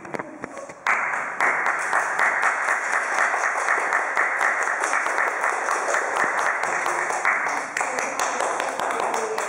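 Small audience applauding, a dense patter of hand claps that starts abruptly about a second in and keeps going, with a few voices mixed in.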